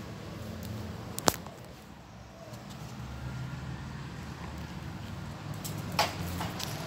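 A single sharp click about a second in, then near the end a dog's claws tapping and skittering on wet ceramic tiles as it dashes off, over a low steady rumble.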